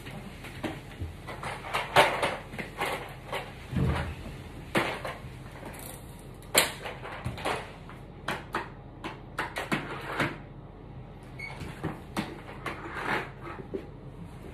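Irregular knocks, taps and rustles of a person handling things at close range while cleaning a room, with a low thud about four seconds in and the sharpest knocks about two and six and a half seconds in.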